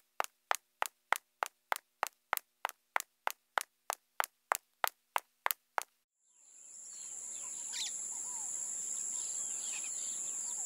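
A run of sharp, evenly spaced clicks, about three a second, for roughly the first six seconds. After that comes tropical jungle ambience: many birds chirping and calling over a steady high-pitched insect drone.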